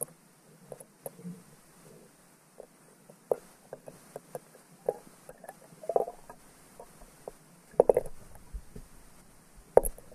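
Irregular, muffled knocks and clunks heard underwater through a GoPro's waterproof housing as the camera is jostled on its line in the well; the biggest bumps come in the second half.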